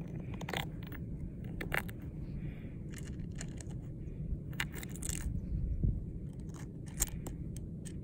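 Green glass bottles wedged in a rock crevice clinking and scraping against the stone as fingers handle them: scattered short clicks and scrapes over a steady low rumble.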